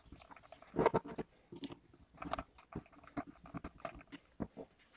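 Irregular metallic clicks and scrapes from the needle bar of a small cast-metal toy sewing machine being worked by hand and with a flat screwdriver, the loudest knock about a second in.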